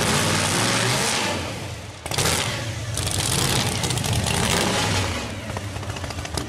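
Blown, alcohol-injected 547 cubic inch Boss big-block V8 of a 1970 Ford Torino Cobra pro street car, running at full throttle on a drag-strip pass. It dips briefly and comes back suddenly about two seconds in, and eases off a little near the end as the car gets farther away.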